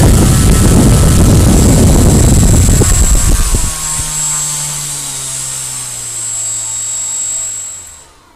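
DYS brushless outrunner motor spinning a propeller at high throttle on a power test bench, with a loud rush of air. About three and a half seconds in it is throttled back and runs slower with a high whine whose pitch slowly falls, then winds down to a stop near the end.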